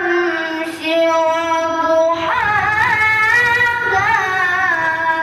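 A boy reciting the Quran in the melodic tilawah style through a microphone: one long held note, then from about two seconds in a new phrase with quick ornamental turns in pitch, trailing off at the end.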